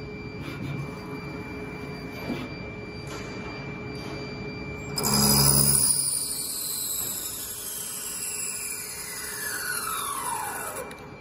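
CNC lathe running with a steady high electrical whine. About five seconds in there is a loud clunk, and then the spindle drive's whine falls steadily in pitch over several seconds as the spindle slows down.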